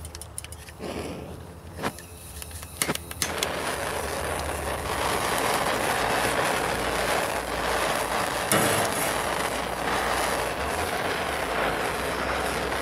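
Handheld propane torch: a few sharp clicks, then about three seconds in the flame catches and burns with a steady, loud hiss.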